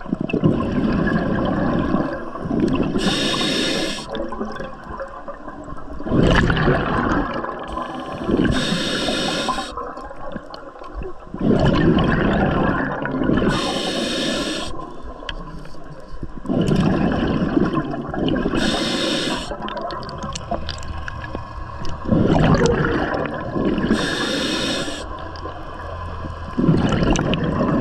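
Scuba diver breathing through a regulator underwater. Each breath is a short hiss on the inhale, followed by a longer gurgling rush of exhaled bubbles, about every five seconds.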